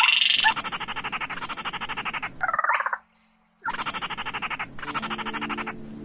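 Played-back calls of gỏ ghẻ and cuốc lùn (small crakes) used as a hunting lure: a series of dry, rattling trills about a second long each, broken by a brief silence about three seconds in. Low steady tones sound beneath the calls from about five seconds in.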